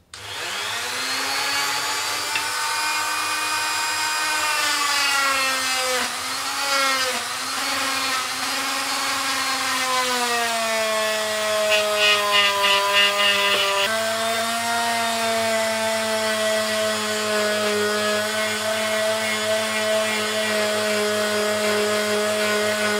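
Oscillating multi-tool sander running against a steel knife blade, sanding off the last of its paint coating. It gives a steady buzzing whine whose pitch sags and recovers a few times under pressure, then holds level for the second half.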